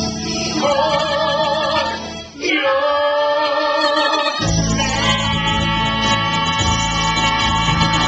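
A woman and a man singing a stage-musical duet over accompaniment, with a short break about two seconds in, then the voices holding a long, full note over the swelling accompaniment for the last few seconds.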